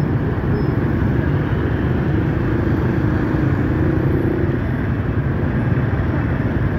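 Steady road traffic noise from motorbike and car engines running close by at a busy city intersection.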